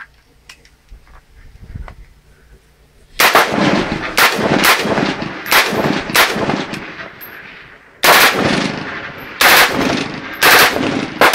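Rheinmetall Steyr RS556 5.56 mm rifle firing a string of about ten shots in quick, uneven succession, each crack trailing a fading echo. The shots begin about three seconds in, after a few faint clicks, with a brief pause midway.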